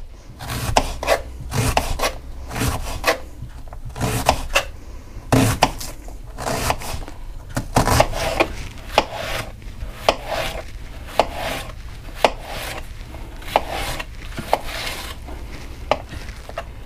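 Kitchen knife slicing a peeled onion thin on a cutting board: a knock each time the blade goes through to the board, with a rasp of the blade through the onion layers between. The strokes come unevenly, about one or two a second.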